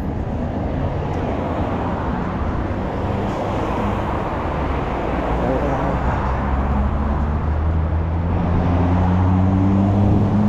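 Road traffic on a busy multi-lane street: a steady wash of tyre and engine noise. In the second half one vehicle's engine hum grows louder as it approaches.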